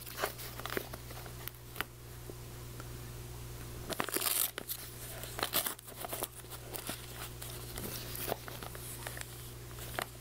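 Newspaper wrapping being unrolled and unfolded by hand: irregular short crinkles and rustles, the loudest about four seconds in, over a steady low hum.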